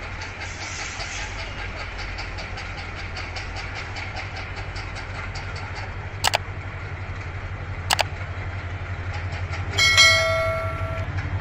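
Diesel locomotive (Hyundai Rotem 3021) approaching, its engine hum growing louder, with two sharp clicks partway through. Near the end the locomotive's horn sounds once for about a second, the loudest sound.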